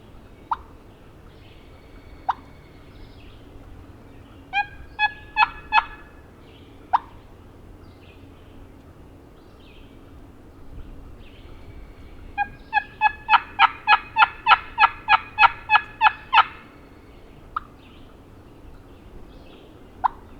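Hen turkey talk on a turkey call: a few sharp single clucks, a short run of four yelps about five seconds in, then a longer run of about fourteen yelps starting near twelve seconds in.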